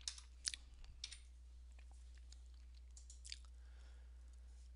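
A few faint, short clicks from a computer keyboard and mouse being worked, three in the first second and one more about three seconds in, over a steady low hum.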